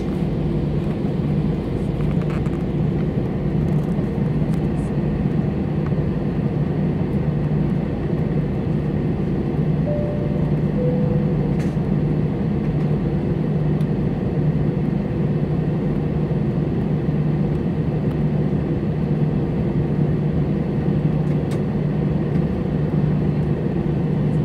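Airliner cabin noise heard from inside while the plane taxis, a steady drone of the jet engines with a constant low hum. About ten seconds in a brief two-note tone sounds, the second note lower.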